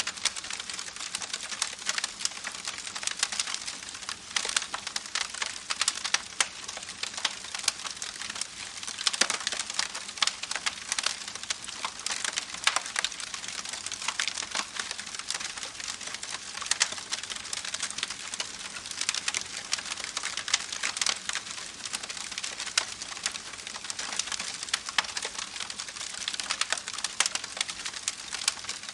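Water falling in many small drops: a dense, irregular patter of sharp little ticks and splashes.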